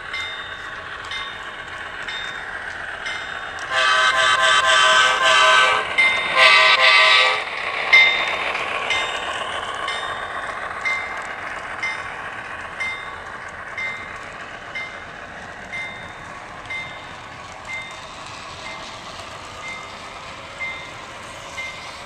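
HO scale Broadway Limited Blueline CSX AC6000CW model locomotive's onboard sound system, with a steady diesel rumble and a two-blast chord horn about four seconds in: a long blast, then a shorter one. Light clicks come about once a second as the train runs.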